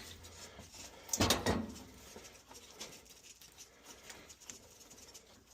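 A loosened metal pipe nipple being worked out of its fitting: a short burst of metal knocks and clicks about a second in, then faint scattered ticks and scraping.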